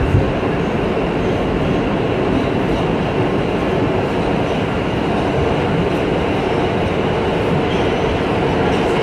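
Steady running noise of a New York City subway train moving through a tunnel, heard from inside the rear car, wheels on rail with a brief knock just after the start.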